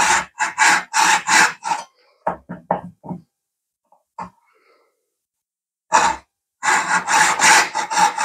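Hacksaw cutting a groove into a G10 fibreglass slingshot frame: rasping back-and-forth strokes, about three a second, each with a ringing note from the blade. About two seconds in the strokes turn lighter and shorter, then stop for about three seconds with one light knock, and resume at full strength about six seconds in.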